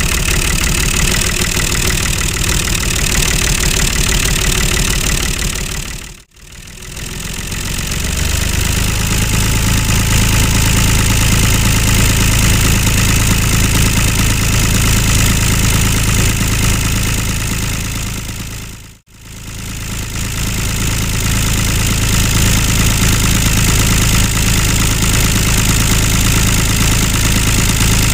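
Tractor engine running steadily at idle with a low, regular chugging. It fades out and back in twice, about six seconds in and again near nineteen seconds.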